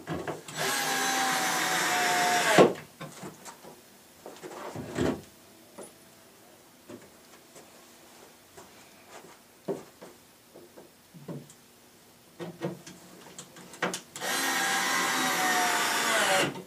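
Power drill driving 1-inch screws into a wooden cabinet frame: two runs of about two seconds each, one near the start and one near the end, the motor's whine sagging slightly in pitch as each screw pulls tight before it stops. Light knocks and taps from handling the cabinet in between.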